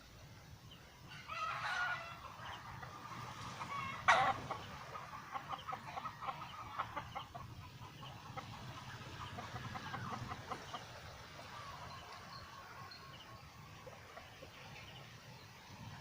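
Chickens calling: a drawn-out call about a second in, a sharp call about four seconds in, then a long run of rapid clucks that fades away.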